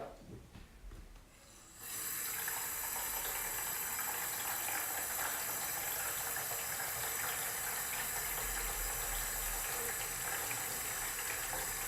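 Water tap running, water pouring into a humidifier's water tank to fill it. The tap comes on about two seconds in and then runs steadily.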